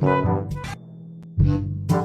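Background music with brass and drum hits. It thins out a little under a second in and comes back about half a second later.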